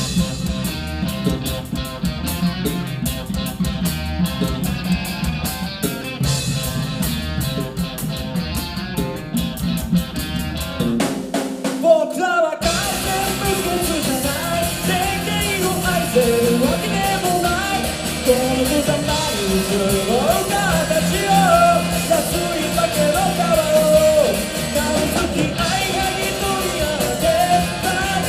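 Amateur rock band playing live, with drum kit, electric guitar, bass and keyboard. An instrumental intro breaks off briefly about twelve seconds in, and then the lead vocal comes in over the full band.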